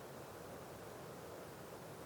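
Faint, steady background hiss with no distinct strokes, taps or voices: room tone.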